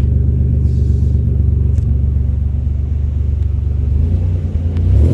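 Nissan 300ZX Turbo's VG30ET turbocharged V6 idling through a newly fitted MSA exhaust: a steady low rumble. About four seconds in, the engine note grows louder and rises a little.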